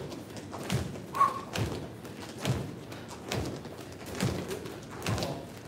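Feet stepping and stomping on a hollow wooden exercise platform during knee-lifts, a dull thud a little more than once a second in a steady rhythm.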